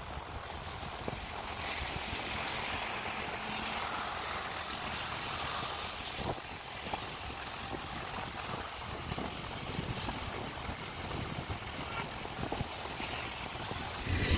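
Steady outdoor wind and road-traffic noise, with no clear single source.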